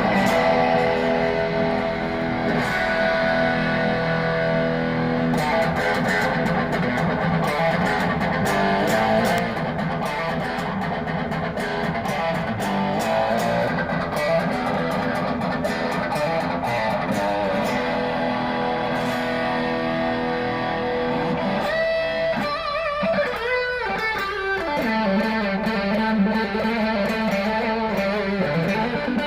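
PRS SE Custom 24 electric guitar with a roasted maple neck and fingerboard, played through an amplifier. It plays sustained strummed chords, then single-note lead lines with bends and vibrato for the last several seconds.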